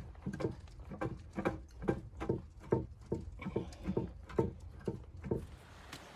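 Footsteps crunching through snow at a steady walking pace, about two and a half steps a second, stopping near the end.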